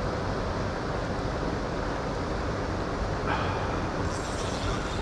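Steady rush of a fast-flowing river, with wind noise on the microphone. A brief, higher hiss joins it in the last two seconds.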